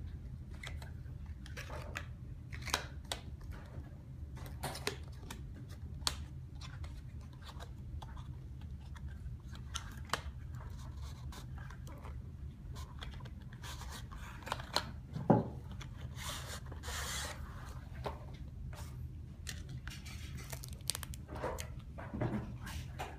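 Product packaging being handled and opened by hand: scattered clicks, scrapes and rustles of box and wrapping, with one sharp click about two-thirds of the way through and a longer rustle just after it. A steady low hum runs underneath.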